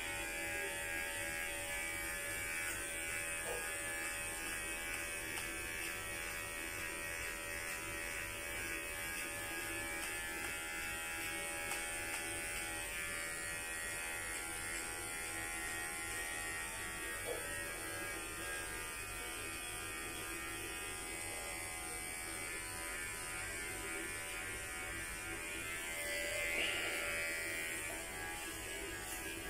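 Electric hair clippers running with a steady buzz while being passed through hair on the head.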